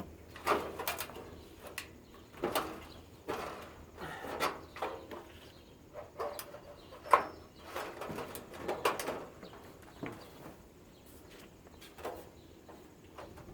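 Irregular knocks, rattles and scraping from parts and wiring of an air purifier being pulled apart by hand, with the loudest knock about seven seconds in.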